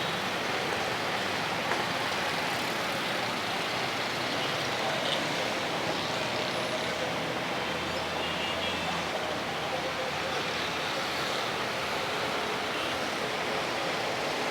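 Steady roadside traffic noise: a constant hum and hiss of passing vehicles, with a few faint short tones rising now and then over it.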